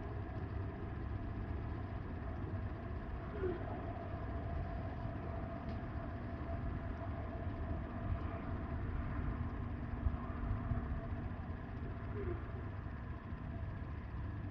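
Wind, a steady low rumble with no gusts or breaks.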